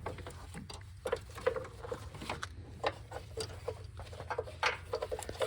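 Irregular light clicks and taps of parts being handled and fitted in a car's engine bay during an alternator replacement, over a steady low hum.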